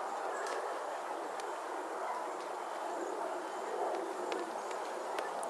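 Park ambience: a steady murmur of background activity, with a few faint clicks.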